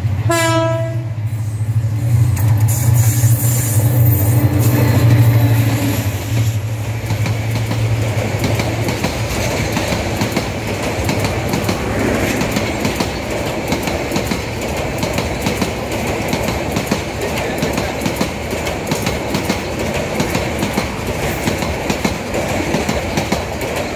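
Diesel locomotive of a passenger express passing close by: a deep, steady engine drone for the first several seconds, then the carriages rolling past with a rapid clickety-clack of wheels over rail joints and a steady rushing wheel noise.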